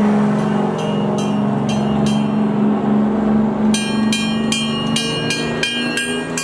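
Fire engine's bell rung in steady repeated strikes, about three a second, faint at first and loud from a little past halfway, each strike ringing on. Under it, the steady drone of fire truck engines rolling past.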